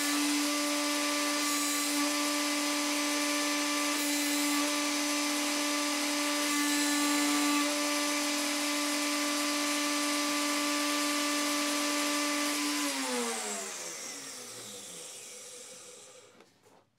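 Electric motor running at a steady speed with a steady hum, then switched off about 13 seconds in and winding down, its pitch falling until it stops.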